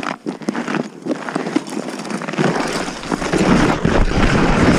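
A sled sliding down a snowy hill: scattered crunching and scraping on the snow at first, then from about halfway a louder steady rush of snow hiss and wind on the microphone as it gathers speed.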